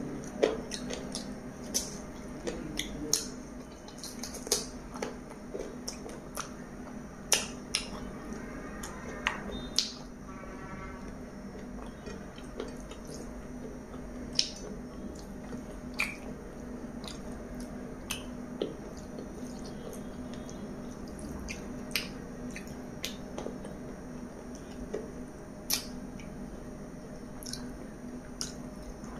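Close-up eating sounds: a person chewing chicken biryani with wet mouth smacks and sharp clicks at irregular intervals, over a faint steady hum.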